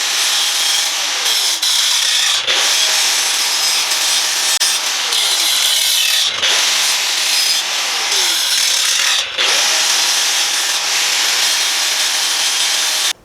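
A power tool working on a steel ammo can makes a loud, continuous, harsh noise. It dips briefly a few times and stops abruptly just before the end.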